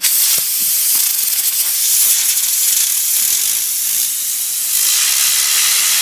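Loud, steady hiss of compressed air from an air compressor's nozzle, blasting a fidget spinner on a pencil to spin it up. The hiss starts abruptly.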